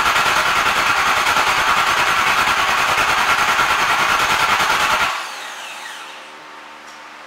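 Starter cranking the Chevrolet Performance 350 H.O. small-block V8 over, with an even, rapid pulse and a steady whine, then cutting off suddenly about five seconds in without the engine catching. It is a no-start while fuel is still not reaching the carburettor from the mechanical fuel pump.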